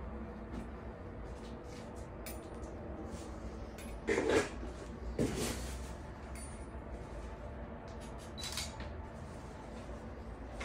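Steady low rumble of a handheld camera being carried, with two short dull bumps about a second apart midway and a few faint ticks.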